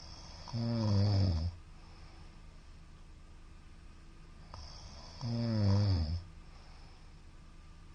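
A man snoring loudly in his sleep: two snores about five seconds apart, each lasting about a second, each starting with a hiss of breath.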